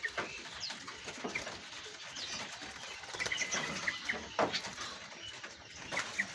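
Many caged songbirds chirping and calling at once, with short scattered chirps and whistles and a few sharp clicks.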